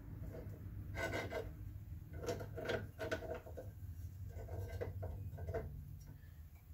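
Small steel parts, a bolt with nuts threaded on it, scraping and clinking against a steel drill press table as they are slid into position under the bit. There are several short scrapes and clinks over a steady low hum.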